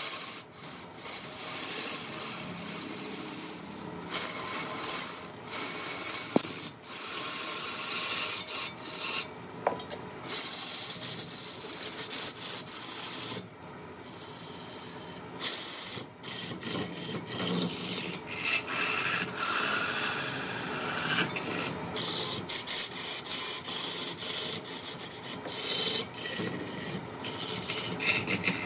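Turning tool cutting into wood spinning on a lathe: a dry scraping hiss that runs in stretches, broken off suddenly by several short gaps.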